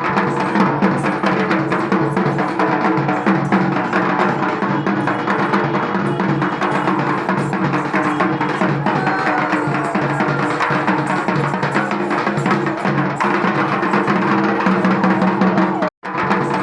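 Music with a prominent drum and percussion beat, steady and loud, cutting out for a split second near the end.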